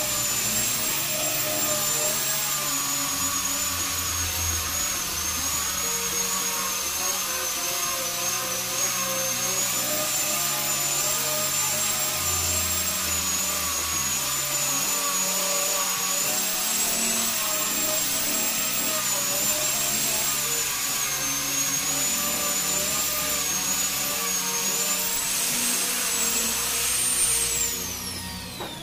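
Angle grinder fitted with a sanding disc running steadily against a teak wood surface, its high whine wavering slightly as it sands. Near the end the whine rises briefly, then winds down as the tool is switched off.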